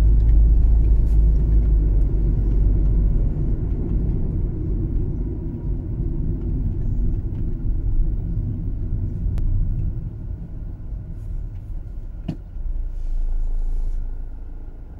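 Car driving, a steady low road-and-engine rumble that eases off as it slows, dropping near the end as the car comes to a stop. Two short clicks in the second half.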